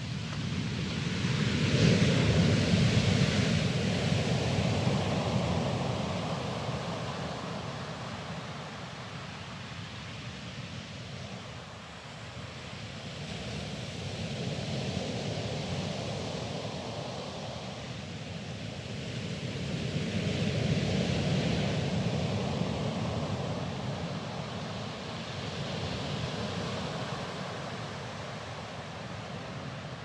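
Sea waves breaking and washing over a pebble and sand beach, swelling and ebbing in slow surges. The biggest surge comes about two seconds in, with smaller ones later.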